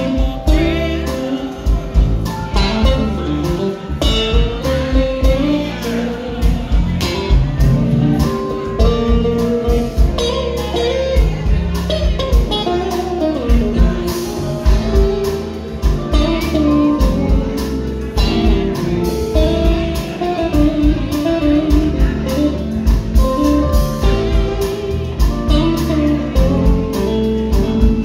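Live band playing blues-style music: guitar notes bending and sliding over bass and a steady drum beat.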